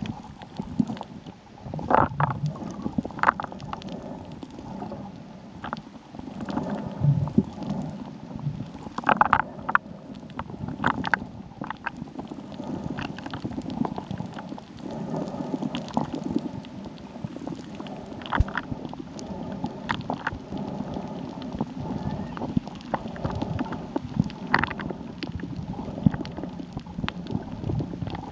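Underwater recording: a continuous muffled rumble of water, with irregular sharp clicks and knocks scattered through it.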